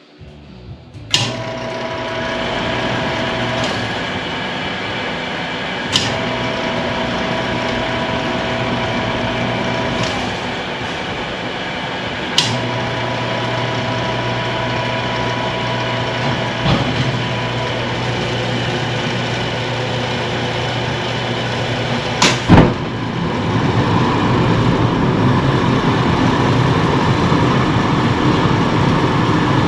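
Shop bake oven being fired up: its machinery comes on about a second in and runs steadily with a hum, broken by sharp clicks every few seconds. After a loud click a little past twenty seconds in, it turns to a louder, rougher rushing noise.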